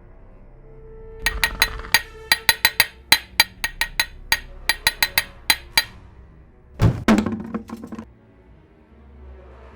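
Kitchen foley: a quick run of about twenty sharp metallic clicks and clinks with a light ring, then a louder clattering impact that rings on for about a second, over quiet background music.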